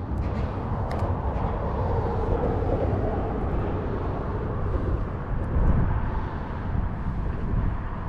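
Steady rumbling roar of traffic on the highway overpass.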